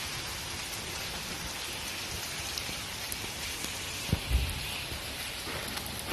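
Steady rain falling, an even hiss of drops on surfaces, with a short low thump about four seconds in.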